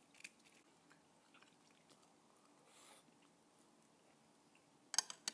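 Quiet mealtime sounds of people eating at a table: faint chewing and small clicks, then two sharp clicks in quick succession near the end.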